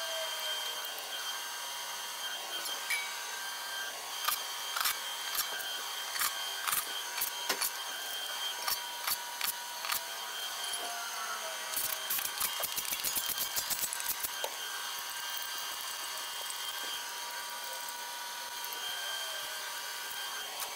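Hand tools fastening the covers and oil pan onto an LS3 engine block. Scattered sharp clicks and taps give way to a fast run of clicking about twelve seconds in, over a steady faint hum.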